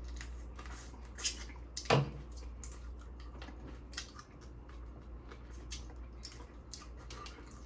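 Close-miked eating of Dungeness crab: wet, squishy chewing and small clicks of meat and shell, with one louder short sound about two seconds in, over a steady low hum.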